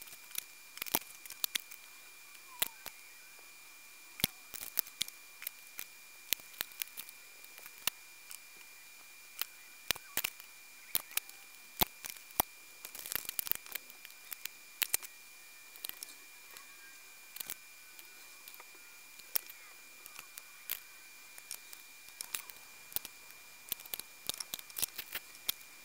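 Irregular small clicks and taps of electronic components, tweezers and small hand tools being picked up, set down and handled on a workbench, with a faint steady high-pitched whine underneath.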